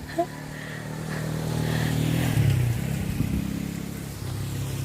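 A motor vehicle engine running, growing louder over the first two seconds or so and then easing off a little.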